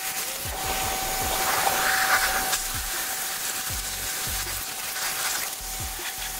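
Dedra 1900 W electric pressure washer running, its water jet hissing as it blasts dirt off the underside of a lawn mower's steel deck, louder about two seconds in, with a steady whine underneath.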